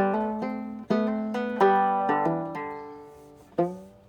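Banjo being picked: a handful of plucked notes and chords, each ringing and fading, with a short pause before one last pluck near the end.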